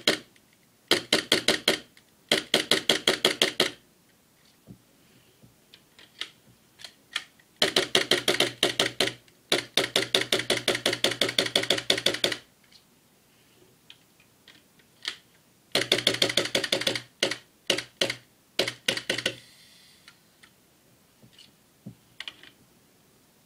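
Tokyo Marui Glock 17 gas-blowback airsoft pistol firing in rapid strings of sharp cracks, its slide clacking back on each shot, with separate single shots, a brief hiss and a few faint clicks in between.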